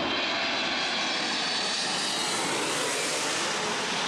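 Twin-engine jet airliner passing overhead on approach with its gear down: steady jet engine noise with a high fan whine over it.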